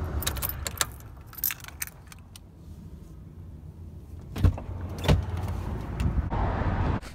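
Keys jangling on a key ring as the ignition key is turned and the car's running engine shuts off after about a second. Then come two dull thumps and a rush of noise as the car door is opened.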